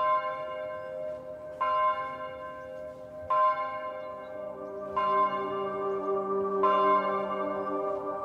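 A bell struck five times, about every second and a half, each stroke ringing on and fading. A low steady tone joins in about halfway through.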